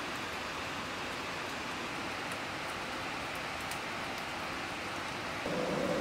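Steady hiss of light rain with occasional faint drip ticks. A low steady hum comes in near the end.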